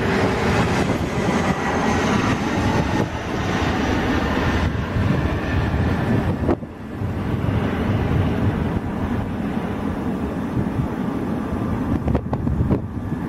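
Rear-engined CRJ regional jet passing low overhead on final approach with gear down: a loud jet rush with a faint falling whine. About six and a half seconds in the sound cuts briefly, then a steady rumble with wind on the microphone and a few buffets near the end.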